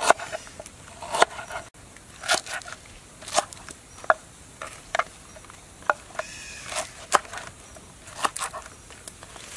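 Knife chopping on a wooden cutting board, cutting through garlic, ginger root and lemongrass: single sharp knocks roughly once a second.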